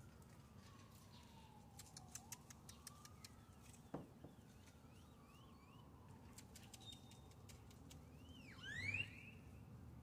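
Great-tailed grackles calling: bursts of rapid dry clicks, a few short chirps, and a loud rising whistle near the end. A faint siren wails slowly up and down underneath.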